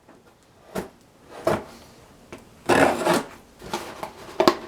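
A cardboard shipping box being handled and opened: a few sharp knocks, and a short noisy scrape about three seconds in.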